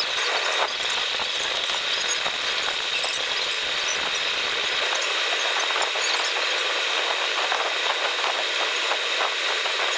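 A small power tool running steadily with a rubbing sound and a high, even whine.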